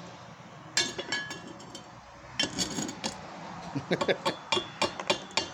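Chipping hammer striking a fresh E6013 weld on thin mild steel square tubing to knock off the slag: sharp ringing metallic clinks, a few at first, then a quicker run of strikes in the last two seconds.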